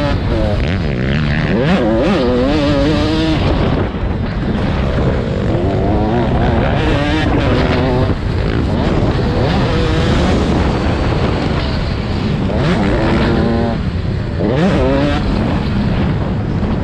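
Several 85cc two-stroke motocross bikes revving hard, their engine pitch repeatedly rising and falling as the riders open and close the throttle and shift, with more than one bike heard at once.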